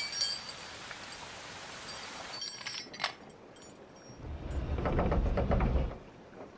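Steady rain hiss that drops away after about two and a half seconds, followed by a few knocks. About four seconds in, a wooden sliding door rumbles open for nearly two seconds; this is the loudest sound.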